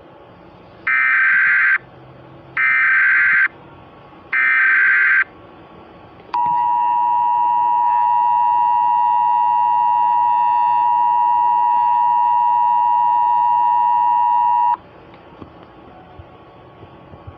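Emergency Alert System header: three short bursts of digital data tones, each about a second long, followed by the steady two-tone attention signal held for about eight seconds before it cuts off. Together they mark the start of an emergency alert message.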